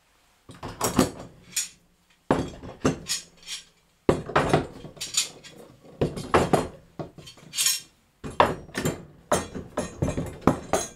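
All-metal Jorgensen F-clamps clinking and clanking as they are hung one by one on a wall rack. The sound is a string of sharp metal knocks with short ringing, coming in quick clusters separated by brief pauses.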